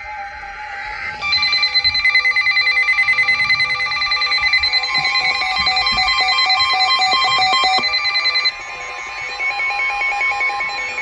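Emergency Alert System alert tones: several steady and rapidly warbling electronic tones sounding together, loud from about a second in and dropping to a softer tone sequence about eight seconds in, signalling an incoming tornado warning broadcast.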